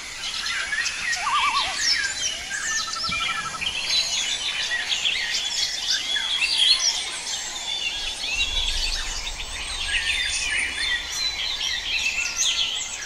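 Many birds chirping and calling at once, a dense chorus of short chirps, quick sweeps and trills.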